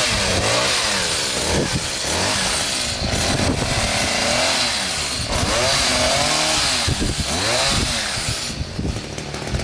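Handheld two-stroke petrol hedge trimmer running while cutting a hedge. The engine revs up and falls back repeatedly as the throttle is squeezed and released.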